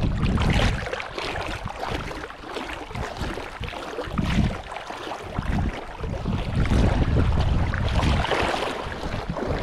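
Wind gusting across the microphone in low rumbling gusts, loudest near the start, about four seconds in, and again around seven seconds, over the steady wash of water.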